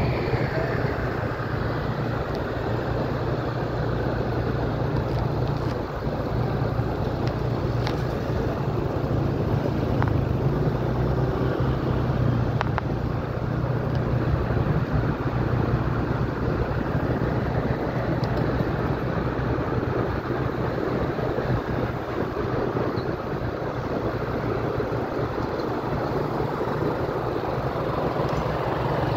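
A vehicle's engine running steadily under way, with road and wind noise, heard from on board. The low engine hum shifts slightly in speed now and then.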